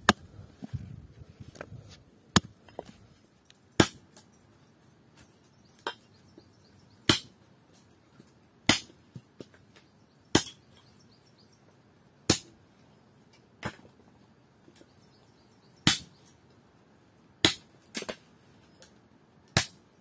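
Hatchet chopping dry branches into short sticks on a wooden chopping block: sharp single chops, roughly one every one and a half to two seconds, about a dozen in all.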